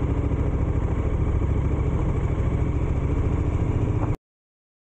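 KTM 1290 Super Adventure S's V-twin engine running steadily at low revs as the bike rolls slowly, a low even pulsing. It cuts off abruptly a little over four seconds in.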